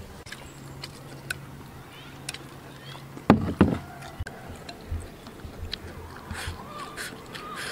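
Chopsticks clicking and scraping against a ceramic bowl and plate as braised pork and preserved mustard greens are pushed into rice, with two louder knocks of china a little past three seconds. Chewing with soft mouth sounds follows in the second half.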